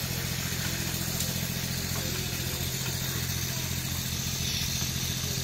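Off-road vehicle engine running at steady revs, a low, even drone with no revving.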